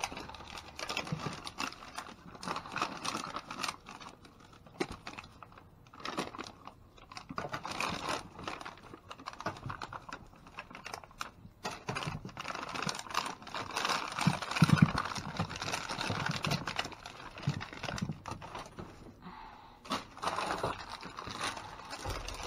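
Hands rummaging through bags and produce: irregular plastic rustling and crinkling with many small clicks and knocks.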